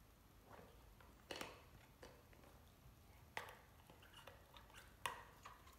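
Faint chewing of a Great Dane puppy on a red Jolly Ball toy: a few soft, scattered clicks and squeaks from teeth on the ball's handle, the clearest about two seconds apart.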